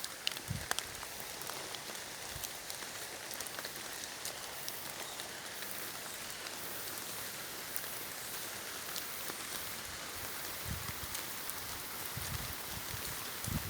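Steady rain falling in a forest: a continuous patter with scattered sharper drips. A few dull low thumps come near the start and in the last few seconds.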